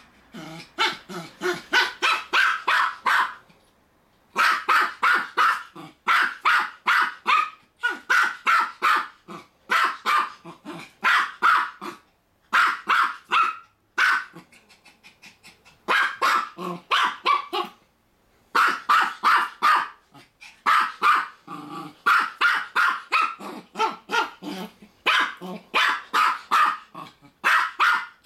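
Keeshond barking at a curled-up hedgehog in rapid volleys of quick, high barks, about four or five a second. Each volley lasts two to three seconds, with short pauses between.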